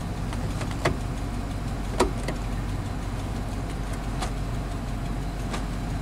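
Chevy Silverado 2500 pickup engine idling steadily, heard from inside the cab, with a few sharp clicks or knocks spread unevenly through it, the loudest about two seconds in, as the transmission is shifted through the gears to check for driveshaft play. Nothing unusual turns up going through the gears.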